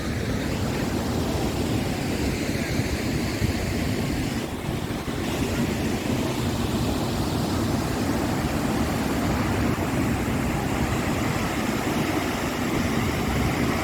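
Large waterfall's water crashing down, a steady dense rush, with gusting wind and spray buffeting the microphone.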